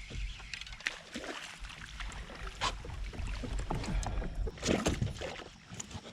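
Kayak on the water: irregular small splashes and knocks against the hull, busiest about two-thirds of the way through, over a steady low rumble of wind on the microphone.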